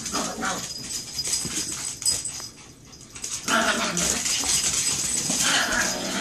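Two small Chihuahuas play-fighting, with growls and scuffling. The noise drops briefly about two and a half seconds in, then picks up louder again.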